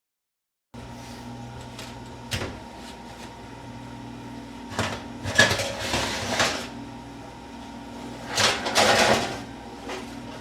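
Workshop handling noises: a few knocks, clunks and scraping rattles of parts being moved, over a steady low hum. The busiest clatter comes about five to six and a half seconds in and again around eight and a half to nine seconds.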